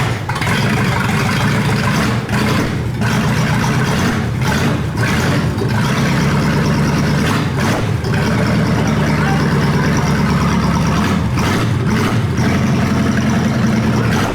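Freshly rebuilt Chevrolet 283 small-block V8 running steadily and loudly, having just caught.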